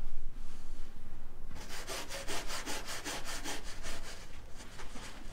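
Paintbrush scrubbing across a canvas in quick, repeated strokes, several a second. The strokes start about a second and a half in.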